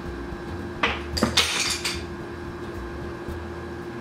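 Something hanging on a door falls off and clatters: a sharp knock about a second in, then a rattling clatter lasting about half a second. A faint steady hum runs underneath.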